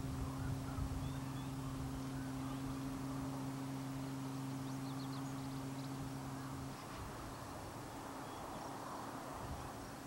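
Outdoor ambience: a steady low hum that cuts off suddenly about seven seconds in, over a soft background hiss, with a few faint high bird chirps near the middle.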